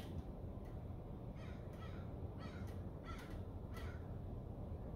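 Faint bird calls: about six short calls, mostly in pairs, over a low steady room hum.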